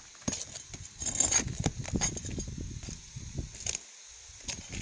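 Roofing nails being pried out from under an asphalt shingle with a metal tool: a run of scraping and metallic clicks and clinks, with a few sharp ticks near the end.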